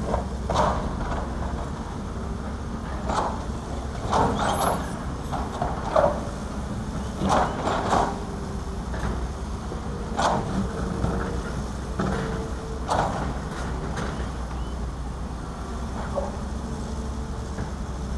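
Heavy diesel earthmoving machines at work, including excavators and dump trucks: a steady low engine drone with short, sharp noises every second or two.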